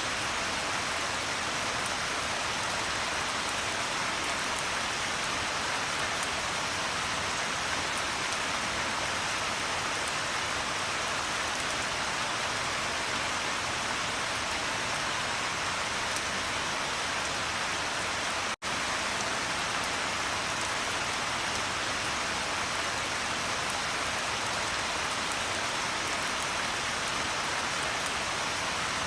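Steady rain falling, an even hiss with fine patter of individual drops. It cuts out for a split second about two-thirds of the way through, then carries on unchanged.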